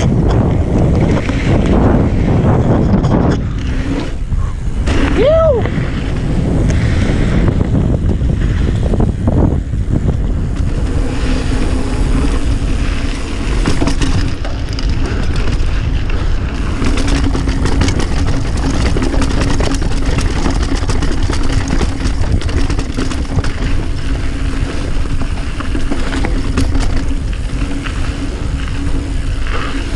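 Wind buffeting the action-camera microphone over the rumble and rattle of a Banshee Spitfire mountain bike riding fast down a dirt trail. A brief squeal rises and falls about five seconds in, and a steady low hum sets in about a third of the way through.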